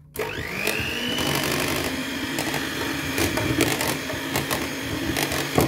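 Electric hand mixer switched on, its motor whine rising over the first second as it spins up, then running steadily with its beaters whipping cream, with scattered sharp ticks.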